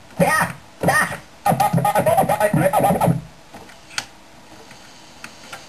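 Turntable scratching: a record pushed back and forth by hand, chopped into short gliding bursts by the mixer's fader. The scratching stops about three seconds in, and a single click follows about a second later.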